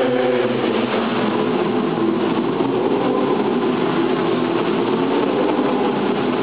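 School choir singing held notes that are partly buried under a steady, even hiss.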